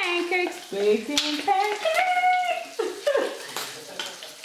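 Pancake batter and bacon sizzling in a frying pan. For the first three seconds a woman's voice sings a tune over it, with a few held notes, then only the sizzle is left.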